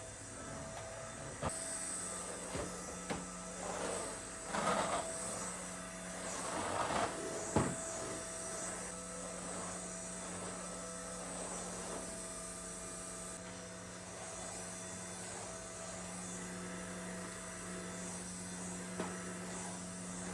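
A steady electrical hum from a kitchen appliance, with a few brief rustling or scraping sounds and one sharp knock about seven and a half seconds in.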